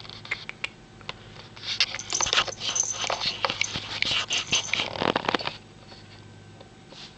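A burst of close rustling and crackling with many small clicks, starting about a second and a half in and stopping sharply about four seconds later.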